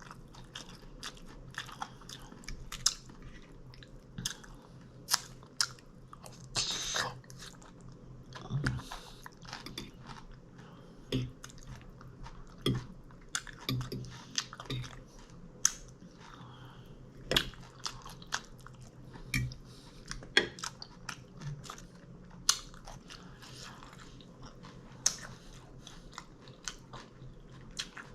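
A person chewing and biting into a loaded taco salad, with irregular crisp crunches and wet mouth sounds between bites.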